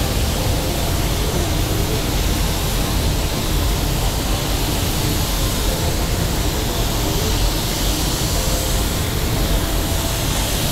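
Steady, loud rushing hiss of compressed air through an Iwata WS-400 Series 2 spray gun during spray painting, with a low rumble underneath.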